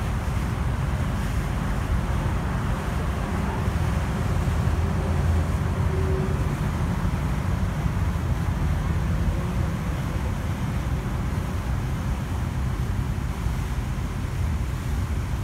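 Steady low rumble of a sightseeing cruise ship's engine under way, heard aboard, with a continuous rush of water and wind over it.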